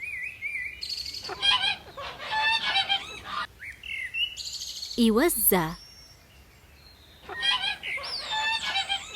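Geese honking in two bouts of rapid, repeated calls, one about a second in and one near the end, with small birds chirping high in the background.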